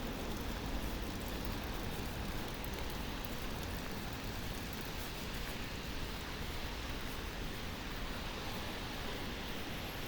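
Steady rain falling, with a low hum of distant city traffic underneath.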